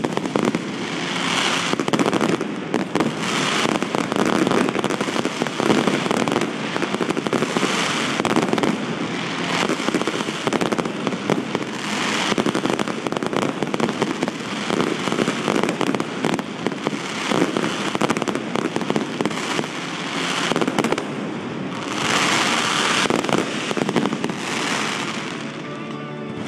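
Aerial fireworks display: shells bursting one after another in a dense, near-continuous barrage, with crackling.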